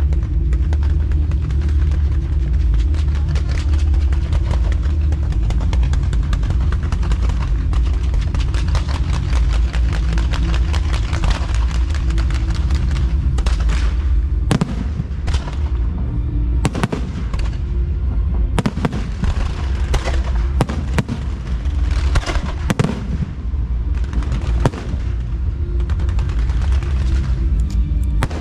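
Aerial fireworks bursting and crackling over loud music with a heavy bass. About halfway through, separate sharp bangs begin to stand out from the dense crackle.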